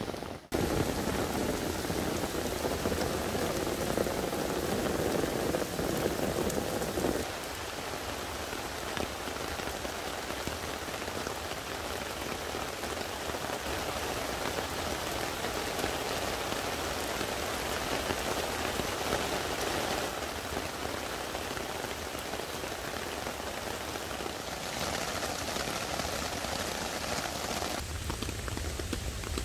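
Heavy rain pouring steadily, drumming on an umbrella and on a tarp shelter over a tent; the rain is a little quieter from about seven seconds in.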